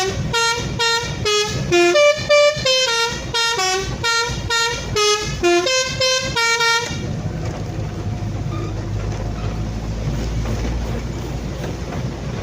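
A musical vehicle horn playing a quick tune of short notes that step up and down in pitch, stopping about seven seconds in; after that a vehicle's engine and road noise run on steadily.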